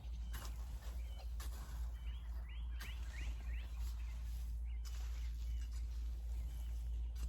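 Outdoor ambience: a bird gives a quick series of short chirps a couple of seconds in, over a steady low rumble, with a few soft knocks scattered through.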